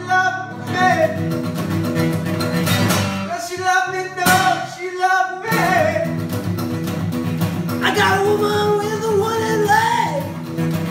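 Steel-string acoustic guitar strummed in a steady rhythm, with a man singing over it. The voice comes and goes: a sung line around the middle and another from about eight seconds in.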